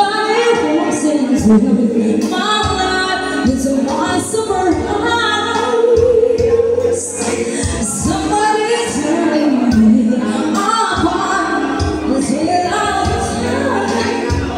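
A woman singing into a microphone over amplified backing music with a repeating bass line, holding some notes for a second or more.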